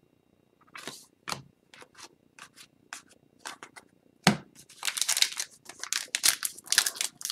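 Trading cards being handled, a series of short crisp clicks and scrapes as they are shuffled and set down, then a louder click. From about five seconds in, a hockey card pack's wrapper crinkles as it is handled and torn open.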